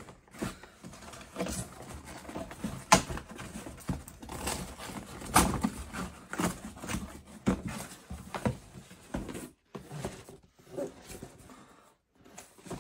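Cardboard packaging being handled and opened: irregular rustling, scraping and knocks, loudest in the first nine seconds and sparse near the end.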